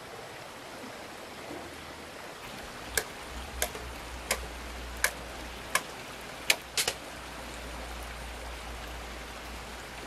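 Stream water running steadily over a small dam, with a series of about seven sharp knocks in the middle, roughly one every 0.7 seconds, the last three close together.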